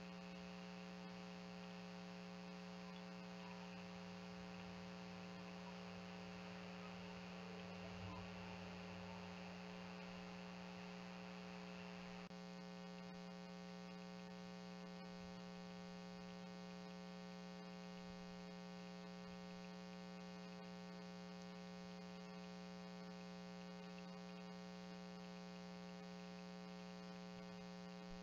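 Faint, steady electrical mains hum on the recording: a low buzzing tone with a stack of evenly spaced overtones. A light hiss over it stops suddenly about twelve seconds in.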